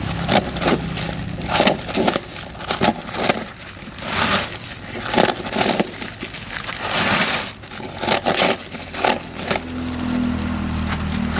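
Irregular knocks and scraping, sharp hits mixed with longer rough bursts of noise, over a low steady hum that grows stronger near the end.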